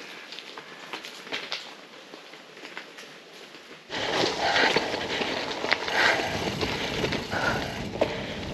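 A quiet open-air background with a few faint short chirps. About four seconds in, this changes abruptly to the loud, rough rolling noise of a gravel bike riding over a dirt track: tyres crunching on the ground, with rattle and wind rumble.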